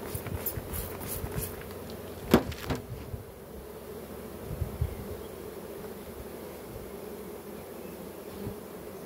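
Honeybees buzzing steadily in a steady hum over the frames of an open hive. A few sharp clicks or knocks come in the first three seconds, the loudest at about two and a half seconds, with a couple of softer thumps just before five seconds.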